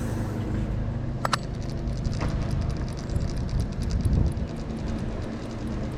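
Cheap fishing reel being cranked to retrieve a cast lure, giving a fast, even run of ticks over a low outdoor rumble, with a sharp click just before the ticking starts.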